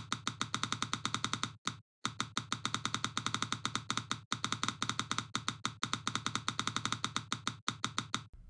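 Rapid, even clicking from the 3Shape TRIOS intraoral scanner software, about nine clicks a second, the audible feedback as scan data is captured; it breaks off briefly three times and stops just before the end.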